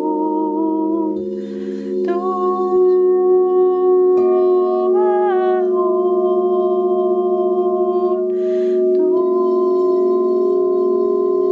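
Crystal singing bowls ringing in steady, overlapping tones, played with a wand around the rim, while a woman sings a wordless, gliding melody over them. She draws a breath twice, about a second and a half in and again near the end.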